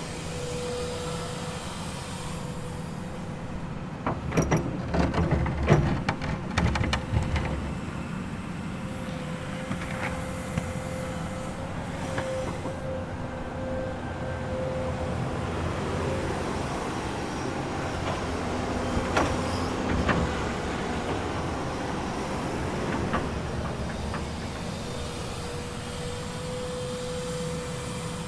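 Komatsu excavator's diesel engine running steadily under a low rumble, with a whining tone that comes and goes. A burst of sharp metal knocks and clanks comes about four to seven seconds in, and another single knock about twenty seconds in.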